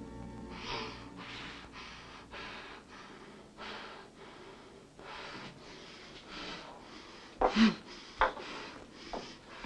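A woman sobbing: ragged gasping breaths in and out, about two a second, broken by a short voiced cry about seven and a half seconds in.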